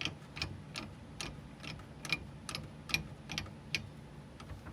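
Steady rhythmic clicking, about two and a half clicks a second, from turning the yellow knob on a stowed car jack to loosen it. The clicks stop about four seconds in.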